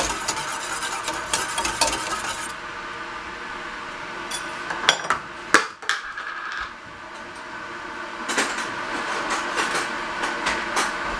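A wire whisk clinks rapidly against a stainless steel saucepan as milk is whisked with starter yogurt for yogurt-making. The clinking stops after about two and a half seconds. A few separate metal knocks follow, and a second run of clinking comes about eight seconds in.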